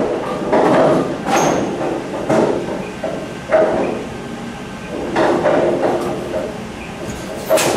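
Bowling alley machinery clattering: irregular knocks and clunks over a steady mechanical hum, with one louder knock near the end.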